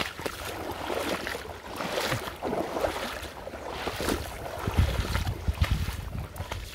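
Shallow river water swishing and splashing unevenly around a wading angler's legs, with wind rumbling on the microphone, strongest about five seconds in.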